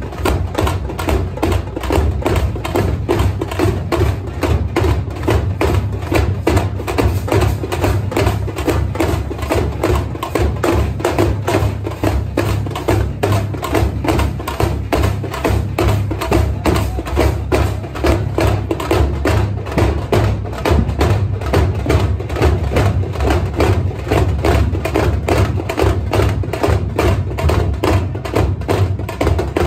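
Festival drum troupe playing a fast, unbroken beat of sharp stick strokes over a deep drum.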